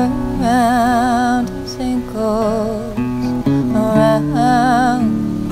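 Acoustic guitar strummed and picked, with a woman's voice singing long held notes with a wide vibrato over it.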